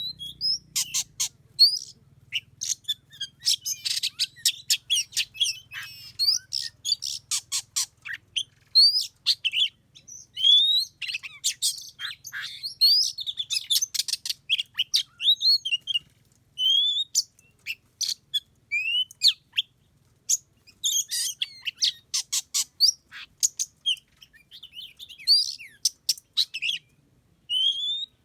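Oriental magpie-robins singing and calling: a rapid, unbroken run of varied chirps, whistled notes and sharp clicks, with only brief pauses.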